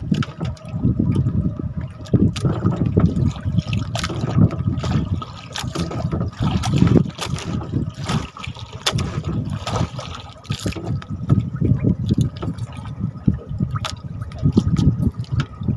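Water sloshing and lapping against a small fishing boat, with wind buffeting the microphone in gusts and scattered knocks.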